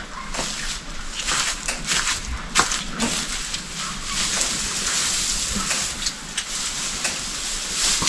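Dry hay rustling and crackling as it is handled at a bale: a steady crackly hiss with scattered sharp clicks.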